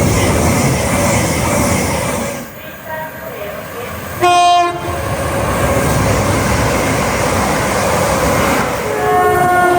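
Passing trains: the loud rumble of a train running at speed, a short single horn blast about four and a half seconds in, then a two-note horn near the end.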